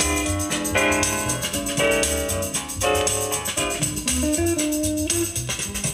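Guitar-led music with a drum and percussion beat playing from a vinyl record on a Sears-branded ELAC 40 turntable.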